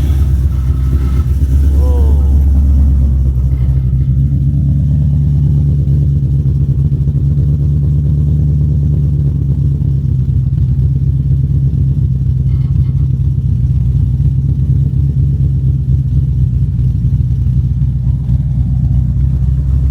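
Ford Mustang GT's V8 engine running steadily at a constant low pitch, with no revving.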